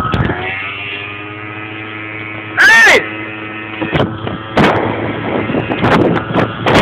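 Small scooter engine running at steady revs, cut by one very loud, sudden bang of under half a second about two and a half seconds in; for the last few seconds wind buffets the microphone over the engine.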